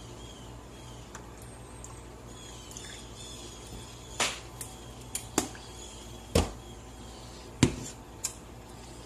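Kitchen background with a steady low hum and a handful of sharp clicks and knocks, the loudest two about six and seven and a half seconds in, from cookware being handled on an electric glass-top stove.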